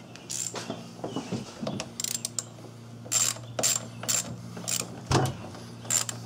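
Ratchet wrench clicking in short, irregular bursts as it tightens a car battery cable's terminal clamp onto the post. A steady low hum runs underneath.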